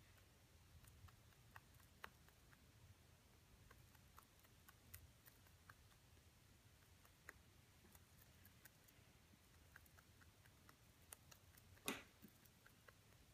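Faint, irregular crisp clicks of an English Angora rabbit chewing hay, with one louder brief rustle near the end.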